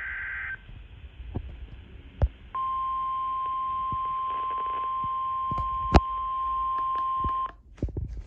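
NOAA Weather Radio warning alert tone from a Midland weather radio receiver: a single steady 1050 Hz tone that starts about two and a half seconds in, holds for about five seconds and cuts off, signalling an incoming weather alert (here a tornado watch). Before it, a short higher tone ends right at the start, and a few sharp clicks occur, the loudest about six seconds in.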